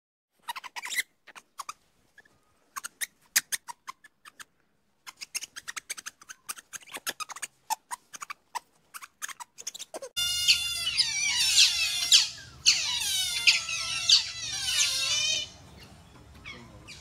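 A run of sharp, irregular clicks, then, about ten seconds in, a group of otters chirping and squealing together: many overlapping high calls, most falling in pitch, for about five seconds.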